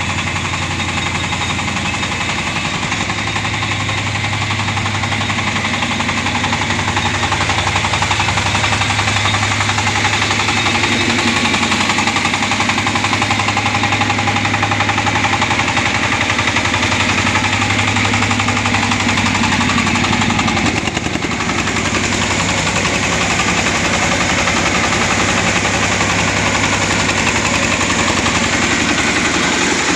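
Mini combine harvester's engine running hard and steadily with a rapid pulsing beat, its threshing machinery going with it; the level dips briefly about two-thirds of the way through.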